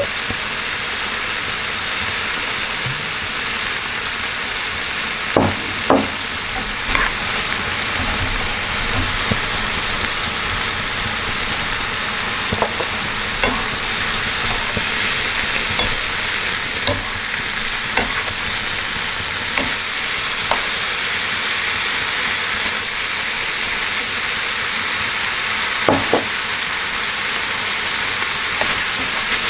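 Tofu, carrots and onion sizzling steadily in a frying pan, with occasional short knocks and scrapes of the wooden spatula and spoon against the pan as the stir-fry is stirred.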